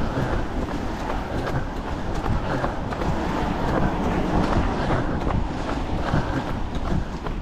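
Wind and handling noise on a handheld camera's microphone while running, a steady low rumble with the runners' footfalls on wet pavement ticking through it.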